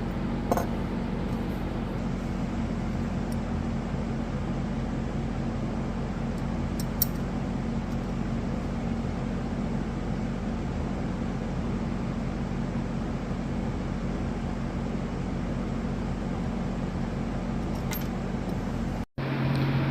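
Steady machine hum: a low buzz under an even hiss, with a couple of faint clicks. A brief dropout comes near the end.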